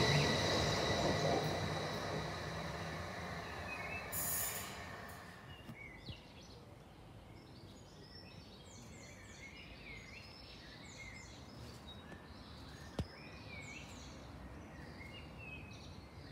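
Passing passenger train running away into the distance, its rumble and a high steady whine fading over the first few seconds, with a brief hiss about four seconds in. Birds then sing in the quiet, with one sharp click near the end.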